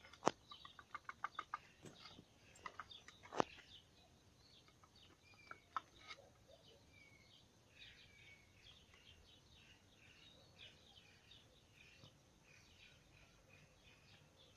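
Faint chirping of small birds throughout, with a quick run of ticks and a few sharp clicks in the first six seconds, the loudest about a third of a second in and at about three and a half seconds.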